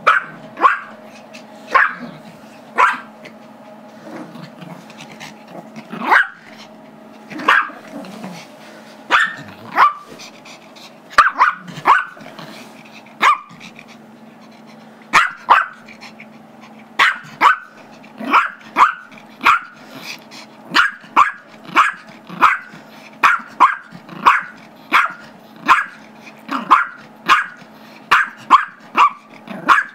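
Small Chihuahua–Yorkie mix barking sharp, high barks over and over at another dog that holds the squeaky toy he wants. The barks come a second or more apart at first, with some low growling, then speed up to about two a second from about halfway.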